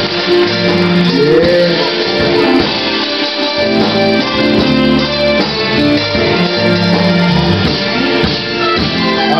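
Live soul vocal group singing in harmony over an electric guitar and band, with long held notes.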